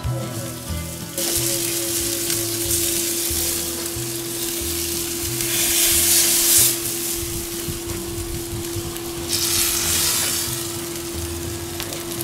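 Thick tomahawk rib-eye steak sizzling as it sears on a hot charcoal grill grate, the final sear of a reverse sear. The sizzle starts about a second in and swells louder twice, about halfway through and again near the end, as the steak is handled on the grate. Background music plays underneath.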